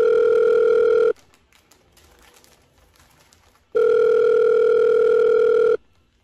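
Telephone ringback tone, the sign that an outgoing call is ringing at the other end and has not yet been answered. It plays as a steady tone that stops about a second in and comes back for about two seconds after a pause of nearly three seconds.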